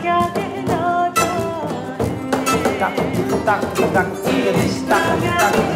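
Music: acoustic guitar strummed and plucked, with a singing voice that wavers in pitch over it.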